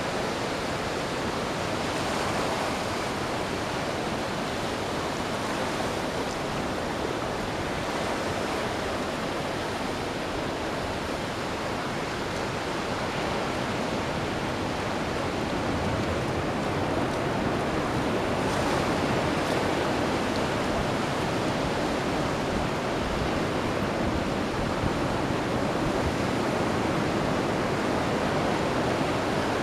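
Ocean waves breaking and washing up the beach, a steady rushing surf that swells and eases slowly, with some wind on the microphone.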